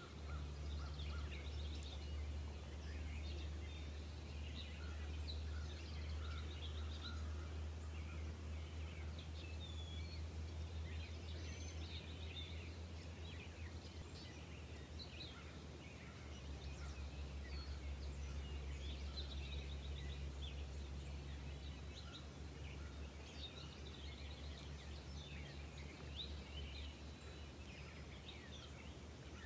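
Outdoor ambience: small birds chirping in short, scattered calls, over a steady low rumble.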